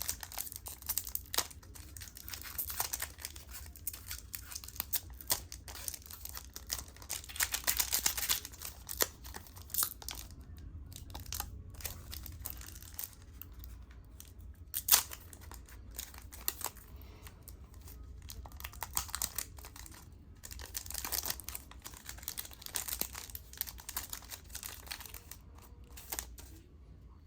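Foil Pokémon TCG booster pack wrapper being torn open and crinkled by hand: irregular crackling and rustling, with one sharp click about halfway through.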